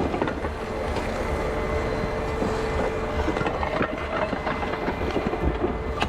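Dense, continuous crackling of a burning building's roof, over a low rumble and a steady faint hum.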